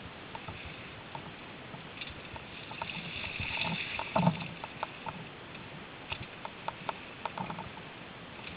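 Mountain bike ridden over a leaf-strewn dirt trail: tyres crunching over leaves and ground with scattered clicks and rattles from the bike. The crunching hiss swells between about two and four seconds in and ends in one hard knock, the loudest sound, just after four seconds.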